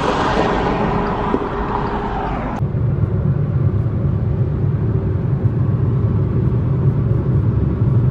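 Motor vehicle noise: a vehicle sound that swells and then fades, then after a sudden cut a steady low engine and road rumble.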